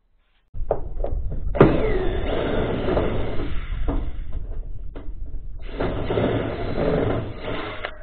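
Cordless drill driving screws through a profiled steel sheet. It runs twice for two to three seconds each, with clicks between the runs over a steady low rumble.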